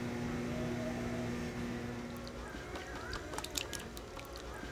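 Hands stirring and squeezing freshly set curd in a plastic tub of raw milk: wet squelching and sloshing of curds and whey. A steady low hum stops about halfway through, and after it come short sharp clicks and a few faint chirps.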